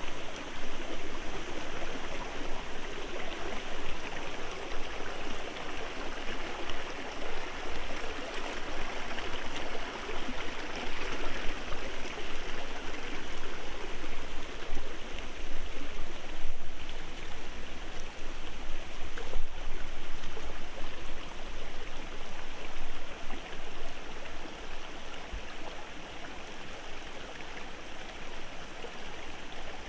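A small, shallow rocky stream running over stones, a steady rush of flowing water.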